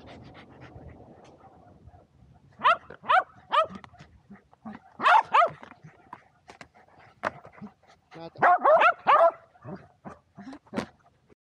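Shetland sheepdogs barking in high, excited yips during disc play. There are a few barks about two and a half seconds in, two more around five seconds, and a quick burst near nine seconds, with short knocks scattered in between.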